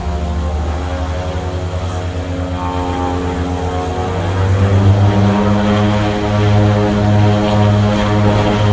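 Twin-engine turboprop airplane running its engines up to takeoff power: a steady propeller drone with a strong low hum that pulses at first, then grows louder and evener about four and a half seconds in.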